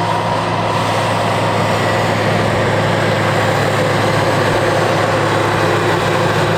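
Heavy vehicle engine running steadily at an even speed, a constant low drone with a rush of noise over it.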